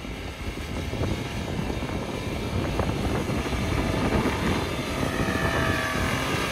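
Toyota Land Cruiser Prado's 4.0-litre V6 petrol engine running under load as the SUV drives through snow, growing gradually louder as it comes closer.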